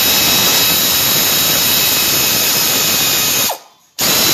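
Hand-held power tool running steadily and loudly, stopping for about half a second near the end and starting again as the trigger is released and pulled.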